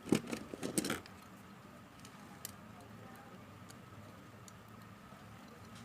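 Small hard parts being handled: a quick cluster of clicks and rattles in the first second, then a few faint ticks over a low steady hum.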